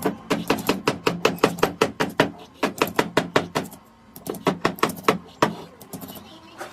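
Rapid, even hammer blows, about four to five a second, with a short pause partway through, then thinning out near the end.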